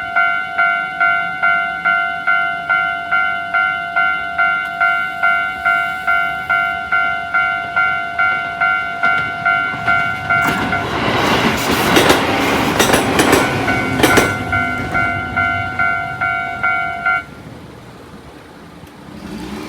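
Japanese railway level crossing's electronic warning bell ringing fast, a repeating tone of about two and a half strikes a second. A short train passes over the crossing about ten seconds in for about four seconds, and the bell cuts off about seventeen seconds in.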